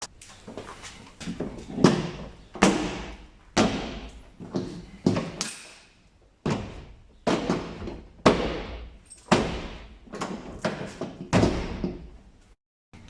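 A series of sharp thumps and knocks on a hard panel, roughly one a second, each ringing out briefly.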